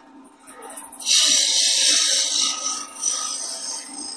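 Round-nose scraper cutting a spinning wooden mallet blank on a wood lathe: a loud scrape starts about a second in, holds for about a second and a half, then tapers off, over the lathe's steady running. It is a light smoothing pass that takes the tool marks off before sanding.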